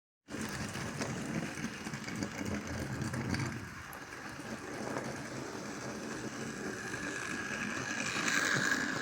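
Model train running on its track: a steady electric-motor whine over the rumble and clatter of wheels on rail, the whine growing louder near the end.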